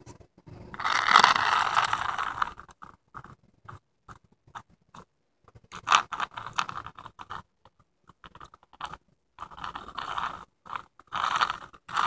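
Cicada buzzing in irregular bursts: one long buzz of about a second and a half about a second in, then a run of shorter, stop-start buzzes. This is the squawk a grounded cicada gives when it is disturbed.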